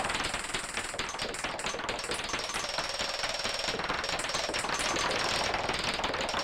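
Experimental electronic music: a Casio CZ-1000 synthesizer sequenced by a KORG SQ-1 plays a fast, dense stream of clicking, noisy pulses, like rapid machine chatter. The tone changes a little before halfway through, losing its low end as a high thin whistle comes in.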